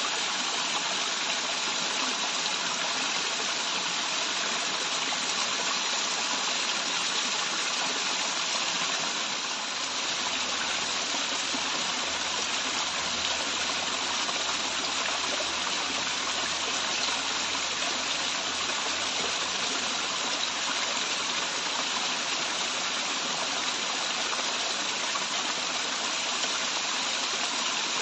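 Waterfall rushing: a steady, even rush of falling and running water.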